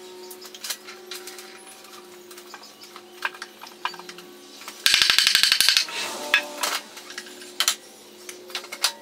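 Hand-tool work on a timber post: scattered light knocks and clicks of tools and wood being handled, with a loud rapid clattering rattle about five seconds in that lasts just under a second.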